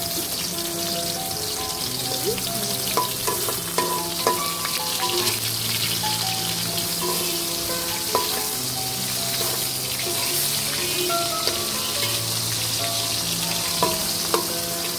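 Turmeric-and-salt-coated eggplant slices sizzling steadily in hot oil in a wok, with a few sharp taps of a metal spatula against the pan. Soft background music with held notes plays underneath.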